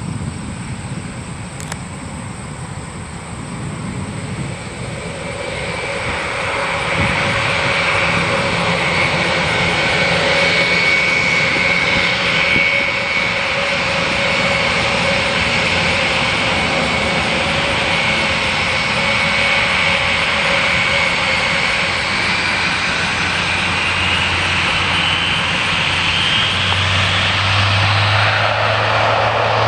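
Airbus A400M Atlas's four Europrop TP400 turboprop engines at takeoff power: a loud, steady drone with a high whine, swelling over the first several seconds. Near the end the whine rises in pitch and a low hum comes in.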